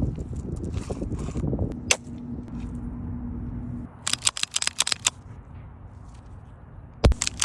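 Pistol shots in quick strings from a small Staccato 2011-style pistol: a single shot about two seconds in, a rapid burst of about ten shots around the middle, and another burst starting with a heavy crack near the end.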